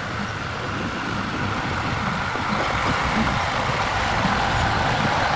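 Heavy construction machine's diesel engine running steadily, with a low rumble, growing slightly louder.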